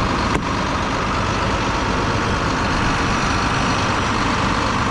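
Truck engine idling steadily, with a single sharp click about half a second in.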